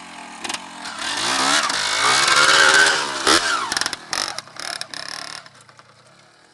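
Yamaha DT 180's two-stroke single-cylinder engine revving up and down on a trail ride, growing louder to a peak around two to three seconds in, then fading away.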